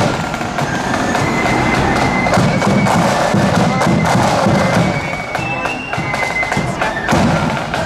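Marching band playing as it marches: a high, thin melody from wind instruments over rhythmic side-drum and bass-drum beats.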